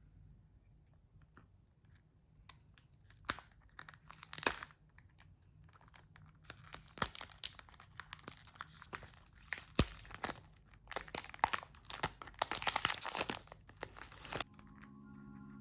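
Paper or plastic packaging being torn open and crinkled by hand, in an irregular run of rustles and sharp tears with a few clicks. Soft music comes in near the end.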